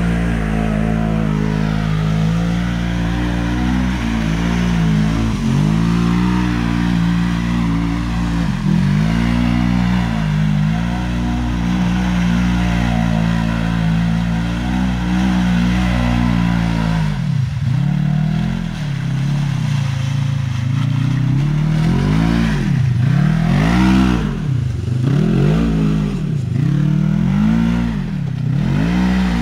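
Side-by-side UTV engine revving hard while the machine spins donuts in mud. The revs are held fairly steady with a few brief drops at first, then rise and fall about once a second over the last dozen seconds as the throttle is worked.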